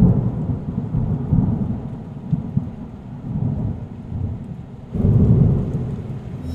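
Thunder rumbling over steady rain, loud at first, easing, then a second rolling rumble about five seconds in.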